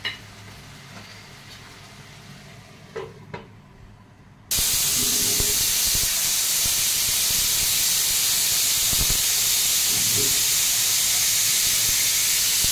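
Stovetop pressure cooker venting steam through its whistle weight: a sudden loud, steady hiss that starts about four and a half seconds in. It is one of the whistles the cook counts to time the chicken curry until the meat is soft. Before it, quiet kitchen background with two faint knocks.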